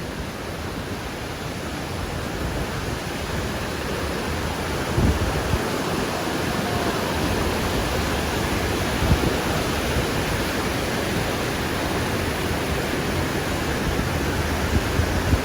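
Waterfall pouring: a steady rush of falling water that grows slowly louder, with a couple of brief low bumps.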